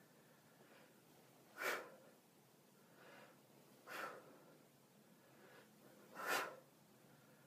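A man breathing hard while doing crunches: three sharp, forceful exhales about two seconds apart, one with each lift, with fainter in-breaths between.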